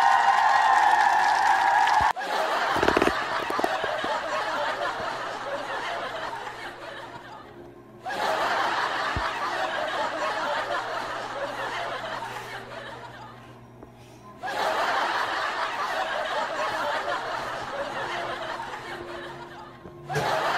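A steady pitched sound for about two seconds that cuts off abruptly, then laughter three times. Each round of laughter starts suddenly and fades away over several seconds.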